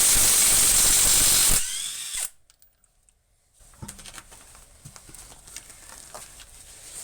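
A power tool runs flat out for about a second and a half, then winds down with a falling whine and stops. After a short pause come faint clicks of tool handling.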